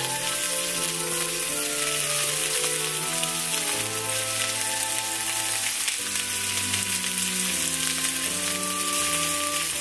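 Pork-wrapped green onion rolls sizzling and frying in hot sesame oil in a frying pan as more rolls are laid in. Background music plays under it.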